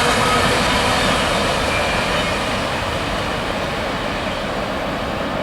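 Mixed freight train rolling by on the rails: a steady rumble and rush of wheels and cars that eases off slightly over the first few seconds, then holds.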